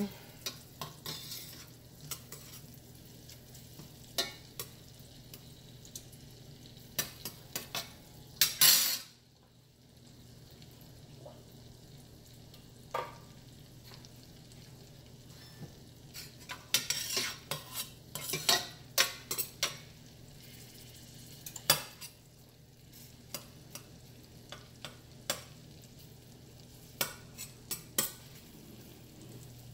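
Metal spoon stirring garlic sautéing in melted butter in a stainless steel pot, clinking and scraping against the pot in irregular spells, over a steady sizzle.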